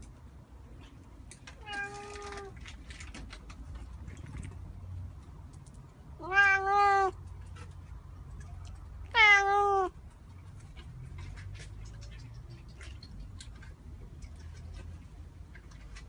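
Domestic cat meowing three times: a faint meow about two seconds in, then two loud, drawn-out meows around six and nine seconds in, with scattered light clicks in between.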